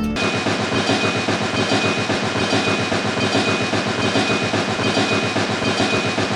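Small motor and gearing of a DIY miniature tractor running steadily, with a rapid, even clatter and a steady high whine.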